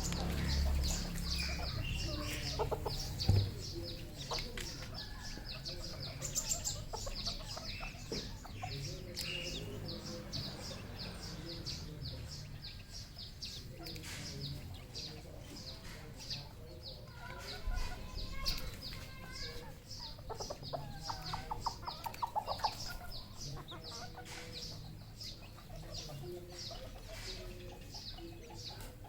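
Red junglefowl clucking, with short calls scattered through and a denser run of clucks about two-thirds of the way in. Many sharp ticks run throughout, and there is a single loud knock about three seconds in.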